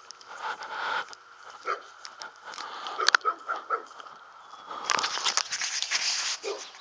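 Handheld-camera handling noise and footsteps in grass: irregular rustles and clicks, with a denser, louder stretch of rustling about five seconds in.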